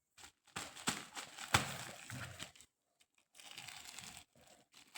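Packaging being torn and crinkled as a parcel is opened by hand: irregular rustling with a few sharp snaps, a pause near the middle, then softer crinkling.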